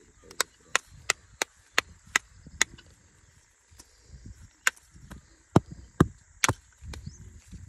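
Sharp knocks of a hand tool striking wood at the base of a sapling, seven evenly spaced at about three a second, then after a short pause four more spaced out, the loudest about six seconds in.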